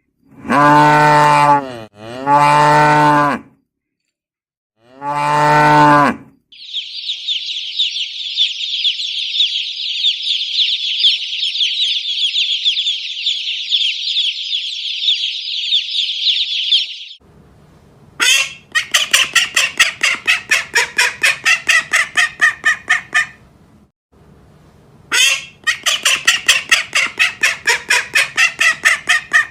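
A cow mooing three times, then about ten seconds of dense, high-pitched chirping. After that, two runs of fast repeated honking calls from domestic fowl, about six calls a second.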